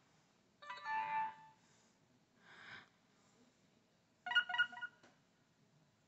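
BlackBerry Curve 8530's built-in notifier tones previewed one after another through the phone's speaker as the tone list is scrolled. There are three short electronic chimes: one about a second in, a fainter one in the middle, and a quick run of repeated notes a little past four seconds.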